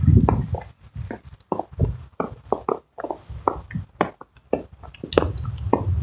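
Footsteps crunching in fresh snow, a quick, uneven run of short crunches, with a low rumble at the start and again near the end.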